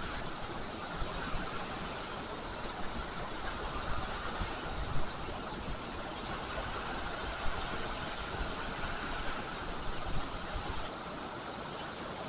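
Small birds chirping in short, high calls, repeated in quick clusters, over a steady rush of flowing river water; the chirps stop near the end.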